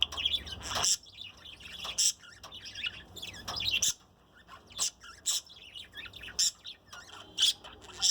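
Budgerigar chirping and chattering: a string of short, quick chirps with brief pauses, the busy warble of a contented budgie.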